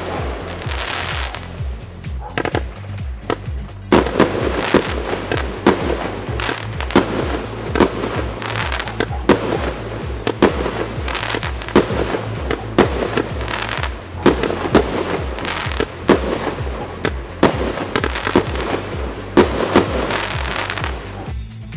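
Professional aerial firework shells bursting from about 200 m away: many sharp reports in quick succession, each trailing off into crackle and echo. Music with a stepping bass line plays underneath.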